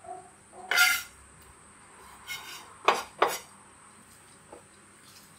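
Kitchen knife scraping minced garlic across a wooden chopping board, once about a second in and again more briefly, then two sharp knocks about a third of a second apart.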